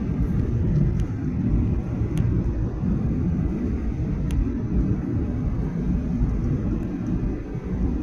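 Steady low rumble of engine and airflow noise inside the cabin of a Boeing 737-800 airliner, with a few faint clicks.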